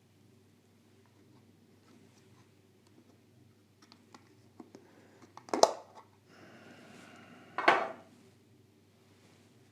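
Plastic packaging of a small diecast model being opened by hand: light clicks and taps, then two sharp plastic snaps about two seconds apart with a scraping slide between them.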